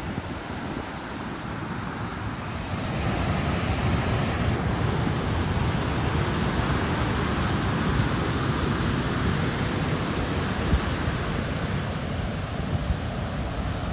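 Ocean surf breaking on a beach: a steady rush of waves that swells louder about three seconds in, with wind buffeting the microphone.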